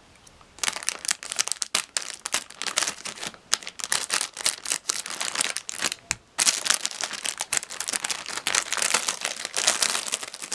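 Clear plastic packaging crinkling as a wrapped magazine with a plush toy inside is handled, a dense crackle that starts about half a second in and stops briefly near six seconds.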